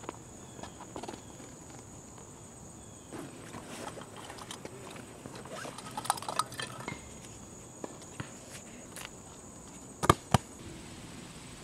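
Rustling and clicking of a nylon gym bag being opened and rummaged through by hand, with two sharp knocks about ten seconds in as a basketball is handled. A steady high-pitched whine runs behind it, dropping out for a few seconds in the middle.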